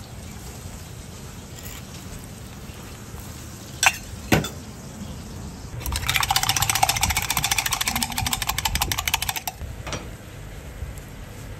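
Egg being beaten in a steel pitcher: a fast, dense metallic clatter lasting about three and a half seconds past the middle. Two sharp knocks come shortly before it, over a low steady background.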